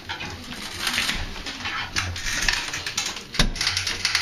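Bathroom demolition clatter: a run of irregular clicks, scrapes and knocks from wood and drywall being worked loose and shifting, with one sharp knock about three and a half seconds in.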